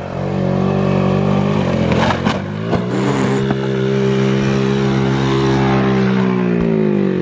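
Moped engine running flat out with its throttle held wide open, with a few sharp knocks and clatters about two seconds in as the moped crashes onto the ramp. The engine then holds a steady high-revving note while the moped lies on its side, and the pitch sags slightly near the end.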